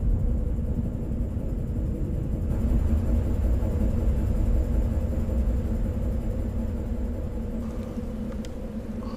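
Film sound-design ambience: a deep, steady rumble with a low hum held under it, like distant heavy industrial machinery.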